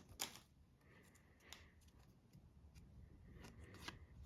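Faint, scattered soft flicks and scrapes of trading cards being slid from the front to the back of a stack in the hand, a few times over a near-silent background.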